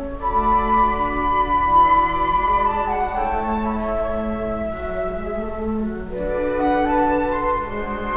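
Flute ensemble playing slow, sustained chords in several parts, with a lower line held beneath a melody that moves note to note.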